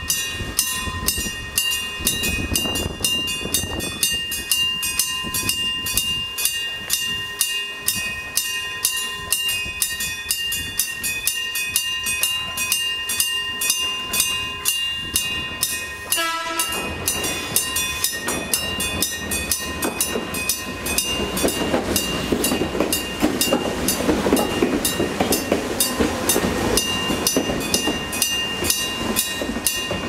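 Mechanical strike bell of a Kumamoto Electric Railway level crossing ringing in an even rhythm, about three strokes a second, each stroke leaving a ringing tone: the crossing's warning for an approaching train. From about halfway a passing train's rumble rises under the bell, loudest about three-quarters of the way through.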